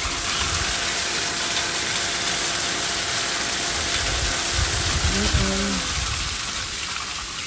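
Pond filter system running while the pond is drained: a steady rushing hiss of pumped water with a faint even hum underneath.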